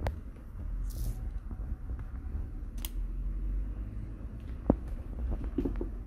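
Light clicks and taps from a hot glue gun being worked against a laptop's plastic base, a few scattered ones with the sharpest a little before the end, plus a brief hiss about a second in, over a low steady rumble.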